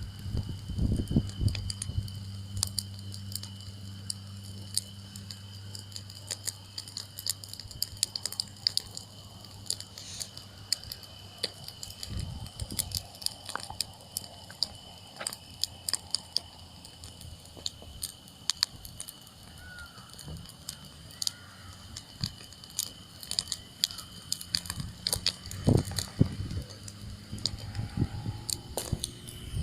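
Wood campfire crackling, with sharp irregular pops and snaps from the burning wood.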